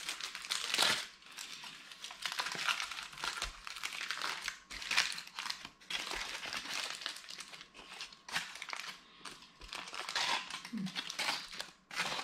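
Aluminium foil crinkling and crumpling in irregular spells as a foil-wrapped parcel of cooked salmon is unwrapped by hand.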